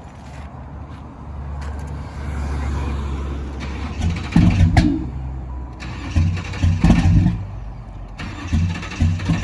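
A 1995 Chevy Caprice's 4.3-litre V8 being cranked by the starter without starting: a steady drone that grows louder, then uneven louder bursts from about four seconds in.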